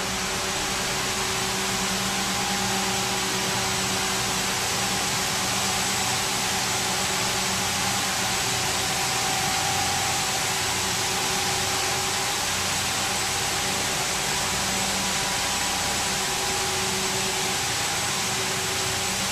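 Steady hum and hiss of running wastewater treatment plant machinery, with a few constant tones held throughout.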